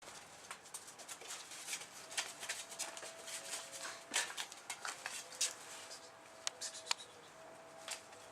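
An eight-week-old puppy snoring softly in its sleep: faint whistling tones held for a second or two at a time, with scattered small clicks.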